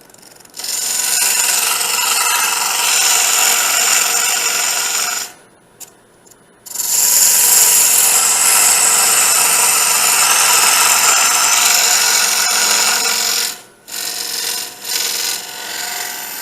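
Wood being cut with a power tool: two long stretches of loud, rough cutting with a short pause between, then lighter, broken cuts near the end.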